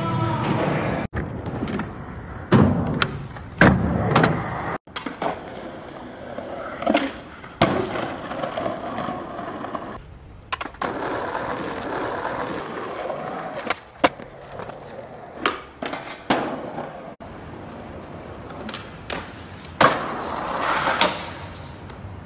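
Skateboard wheels rolling on concrete and paving, with sharp clacks of tails popping and boards landing or hitting the ground. The sound cuts abruptly between short takes several times.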